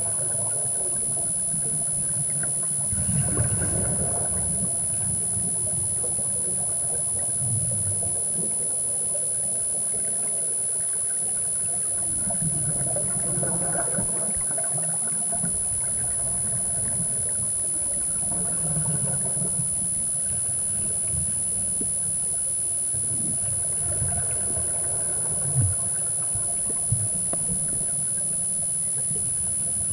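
Muffled underwater sound of a scuba diver exhaling through a regulator: a gurgling rush of bubbles about every five seconds over a steady low hum. Two sharp knocks come near the end.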